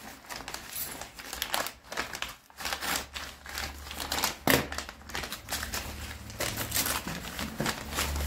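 Brown paper mailer being torn open and crumpled by hand: irregular rustling and crinkling of paper. A low steady hum comes in about two and a half seconds in.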